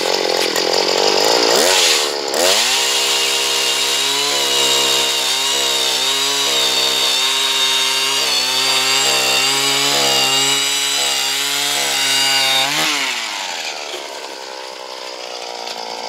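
Gas-powered ice auger boring a hole through lake ice: the engine revs up about two seconds in, holds a steady high pitch under load while the spiral bit cuts, then drops in pitch and winds down about three seconds before the end.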